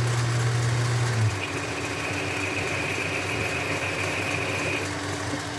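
Boxford lathe running while a parting-off tool feeds into a spinning aluminium bar. About a second and a half in a steady high tone from the cut comes in over the machine's hum and holds until near the end.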